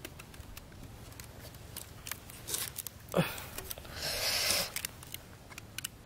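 Yellow plastic string being wound and pulled tight around a bamboo stake and crossbar by hand: light clicks and rustling, a sharp snap about three seconds in, and a longer rustle of the string being drawn tight a second later.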